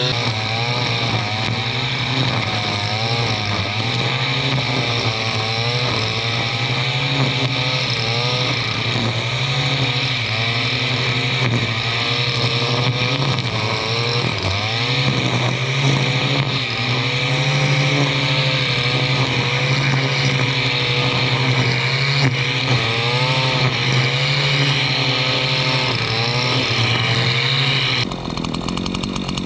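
Stihl FS 461 C-EM two-stroke brushcutter running at high speed while cutting vegetation, its engine pitch wavering up and down as the load changes. The sound drops suddenly in level near the end.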